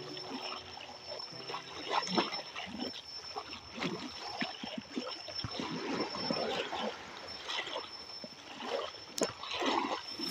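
Small waves lapping and splashing irregularly over a pebbly, rocky shoreline.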